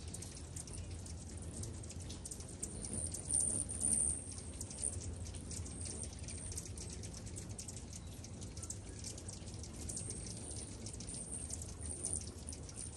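Many hummingbirds at feeders: a constant stream of quick, very high chips and squeaky chatter, loudest a few seconds in, over a steady low hum.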